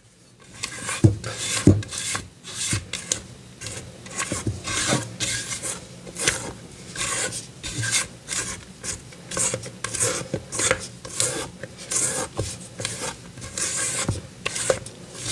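A kitchen utensil scraping and rubbing against a mixing bowl in a steady run of short strokes, about two a second, as batter or a mixture is worked in the bowl.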